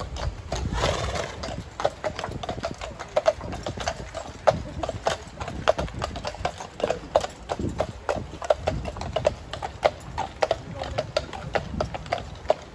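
Shod hooves of a pair of heavy draught horses clip-clopping at a walk on a tarmac path, an uneven run of several strikes a second as they pull a loaded cart.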